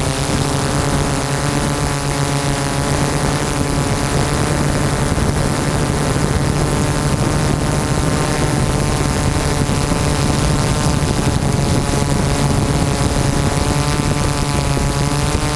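Multirotor drone's electric motors and propellers running steadily as it hovers, heard from the camera mounted on the drone itself: a loud, even buzzing hum whose pitch wavers slightly near the end.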